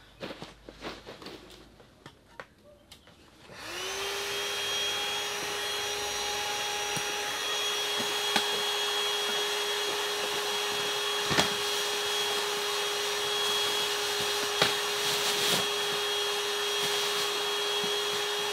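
Electric air pump switching on about three seconds in and running steadily, inflating an air mattress, with a steady hum and airy hiss. Before it starts there is light rustling and handling, and a few knocks sound over the pump.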